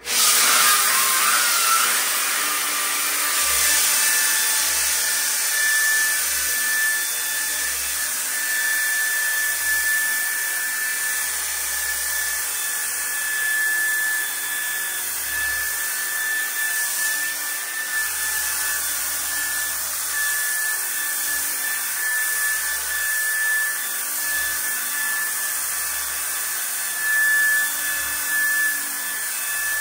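High-speed sander spinning a diamond sanding disc, wet-sanding the worn porcelain bottom of a bathtub: a steady high-pitched whine over a gritty hiss, starting abruptly.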